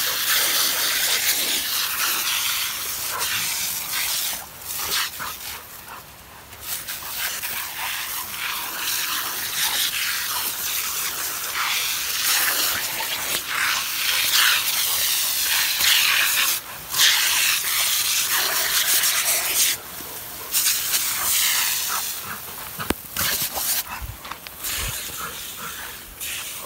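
A lawn sprinkler head hissing as it shoots a jet of water, with splashing as Rottweilers bite at the spray. The hiss breaks off briefly several times.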